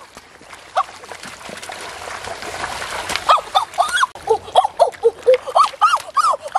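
Water splashing in a shallow stream as someone wades and grabs through it. From about halfway in, a quick series of short, squeaky rising-and-falling animal calls, a few a second, sounding like a dog whimpering, comes over the splashing.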